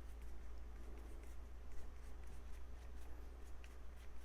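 Faint scratching and light clicks of a cleaning brush sweeping old coffee grounds out of an espresso machine's burr grinder chamber, over a steady low hum.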